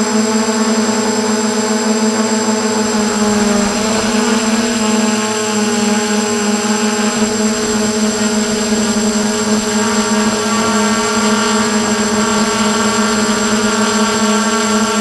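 F450 quadcopter's electric motors and propellers running in flight, a steady droning whine heard close up from the onboard camera, its pitch shifting slightly with throttle changes, with higher tones joining about two thirds of the way through.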